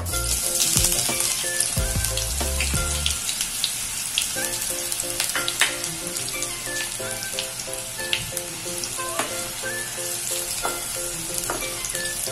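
Sliced onions frying in hot oil in a pan: a steady sizzle with scattered pops and crackles that starts sharply as the onions go in. A spatula stirs them near the end.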